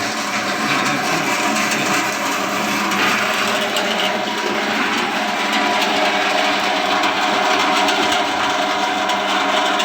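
A 600-watt electric emping and sale-pisang machine running steadily, a continuous motor whir.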